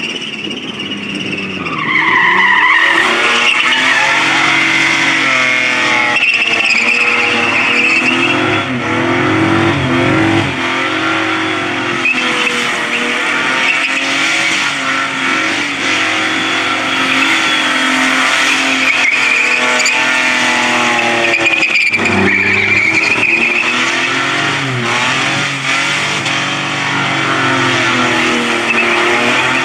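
Holden Commodore burnout car held at high revs, its engine note swinging up and down as the rear tyres spin and squeal continuously. The revs and loudness climb about two seconds in, with a brief dip shortly before the end.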